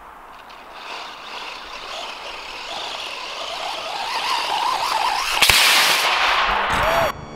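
1:10-scale HobbyKing Desert Fox RC truck's electric motor whining and its tyres on sand, wavering in pitch with the throttle and growing louder as it drives closer. About five and a half seconds in, a solid rocket motor ignites with a sharp crack and a loud hissing rush that lasts about a second and a half, then cuts off suddenly.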